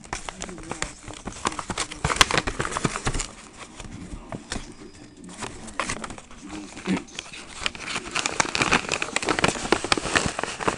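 Paper packaging crinkling and rustling as it is handled and unwrapped, in dense irregular crackles. They are louder about two seconds in and through much of the second half.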